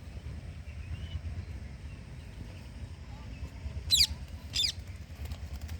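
Parrot giving two short, sharp screeching calls about half a second apart, a little past the middle, over a steady low rumble.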